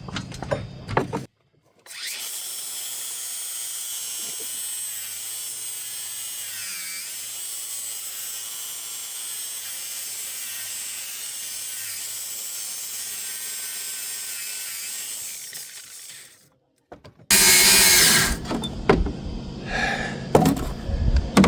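Power grinder grinding off the welds that hold a worn chain-drive sprocket to a golf cart's rear shaft: a long steady whine whose pitch dips briefly about seven seconds in. After a short break, a louder harsh grinding noise starts near the end.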